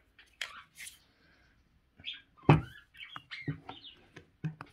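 Light clicks and taps of a steel drill bit being handled at the chuck of a rotary hammer, with one sharper knock about two and a half seconds in. Short, faint, high chirps come and go between them.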